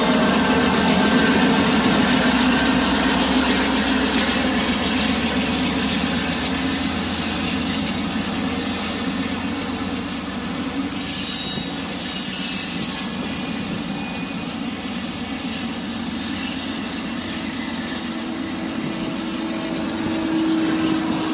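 Freight train rolling past, a steady rumble and clatter of wheels on the rails, with a brief high-pitched squeal of wheels about ten seconds in.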